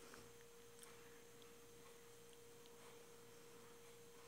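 Near silence with a faint, steady hum at one pitch and a few tiny ticks.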